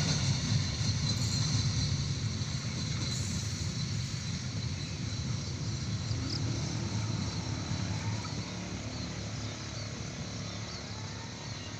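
Low rumble of a slow-moving train fading away as it moves off, with a few faint high chirps about halfway through and near the end.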